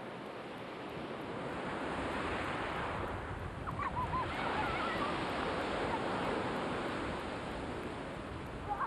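Black Sea waves washing onto the shore: a continuous rushing surf that slowly swells and eases, with a few brief wavering high calls about a third of the way in and again at the end.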